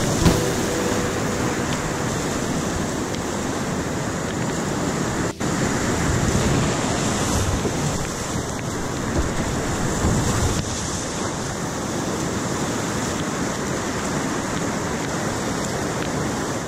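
Whitewater rapids rushing and crashing around a kayak, heard up close from a camera on the boat, with water splashing over the microphone. The sound is loud and steady, with one very brief drop-out about five seconds in.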